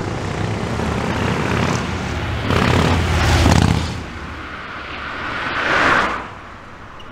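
Motorcycle riding past: the engine sound builds, is loudest as the bike goes by about three seconds in, swells once more near six seconds, then fades as it pulls away.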